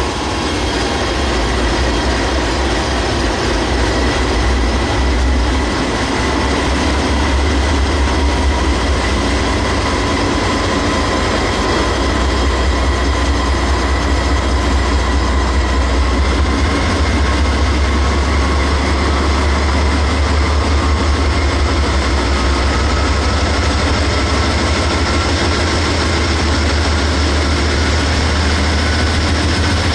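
GE AC44CW diesel-electric freight locomotives (16-cylinder engines) running as the freight train moves slowly past: a steady, heavy low engine drone over the rolling of freight-car wheels on the rails, with a faint steady whine.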